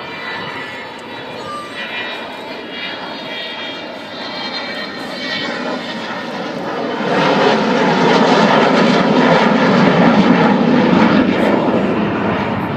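Avro Vulcan bomber's four Rolls-Royce Olympus turbojets passing in a display flypast: a steady jet noise with whistling tones that swells sharply about seven seconds in, stays loud for a few seconds and starts to ease off near the end.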